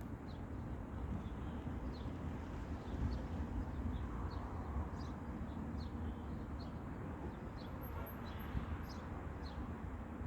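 A sparrow chirping: short, high, downward-sweeping chirps, about one or two a second, over a steady low rumble.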